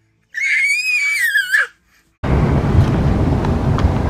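A baby's high-pitched squealing cry, one wavering call of over a second that drops in pitch at the end. About two seconds in, a steady low rushing of wind noise on the microphone takes over.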